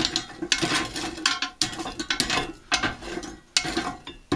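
Metal fire tongs scraping and clattering around inside a small round homemade stove, raking the ash off the grate because the stove has no grate shaker. The strokes are uneven and come about two to three a second.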